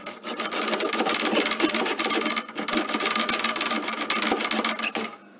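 Hand saw cutting through a Quick-Step Incizo threshold profile, rapid back-and-forth strokes with a brief pause about halfway, stopping about five seconds in.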